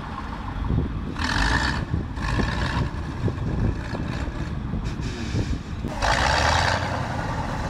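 GTT tracked amphibious vehicle's engine running under load as it churns through icy slush and water, with bursts of loud rushing, splashing noise, the longest starting about six seconds in.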